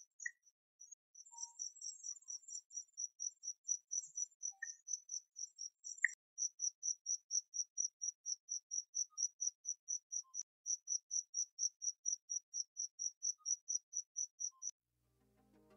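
Crickets chirping: a steady run of high, evenly spaced chirps about four a second, with a second, higher-pitched chirper joining in off and on during the first half. The chirping stops shortly before the end as music fades in.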